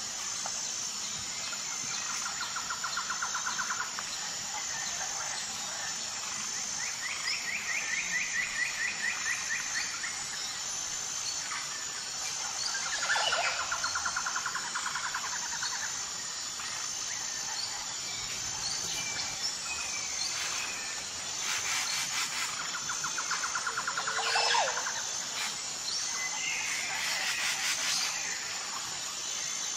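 Insects chirping steadily at a high pitch in an even pulse, with birds giving short rapid trills and calls every few seconds.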